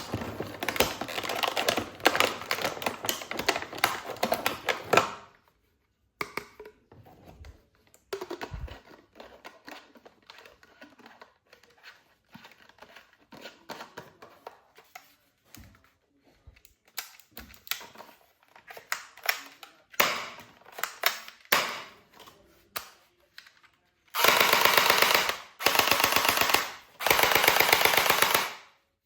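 Toy guns being worked and fired: dense rapid clicking at first, then scattered clicks and knocks of handling. Near the end come three loud bursts of rapid fire, each over a second long.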